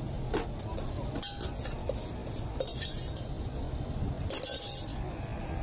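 Metal scoop clinking and scraping against a steel mixing pot as spiced puffed rice is scooped out. There are several sharp clinks, then a short scrape a little after four seconds, over a steady low street-traffic hum.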